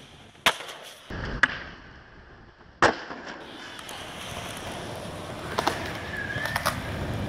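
Skateboard on concrete: a few sharp clacks of the board striking the ground, the loudest nearly three seconds in, then the steady noise of its wheels rolling over concrete with a couple more light clacks.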